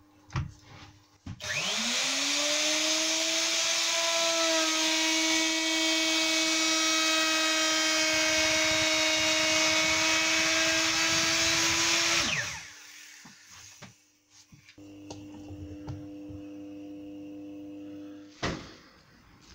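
Handheld router with a flush trim bit spinning up about a second in, then running steadily through a final pass cutting a cable channel in MDF, and switched off to wind down after about eleven seconds. A quieter steady hum follows for a few seconds, then a single click.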